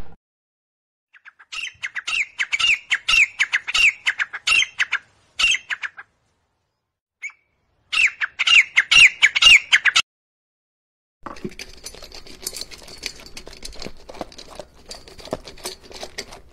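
Sharp-tailed grouse calling: two runs of quick clucking, chirping notes, several a second, the second run louder. From about eleven seconds in, a fainter, irregular clicking noise follows.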